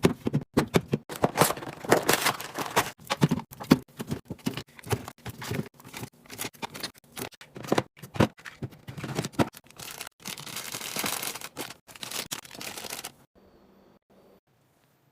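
Snack packages and containers being handled and set down during a restock: quick clicks, taps and knocks with crinkling plastic wrappers in between, and a longer steady rustle about ten seconds in. The sound stops abruptly about two seconds before the end.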